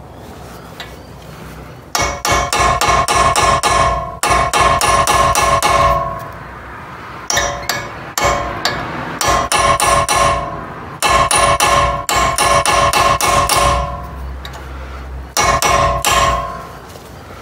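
Claw hammer rapidly tapping a punch against a driveshaft nut to stake it into the axle: runs of quick metal-on-metal strikes, several a second, with a bell-like metallic ring, stopping and starting about six times.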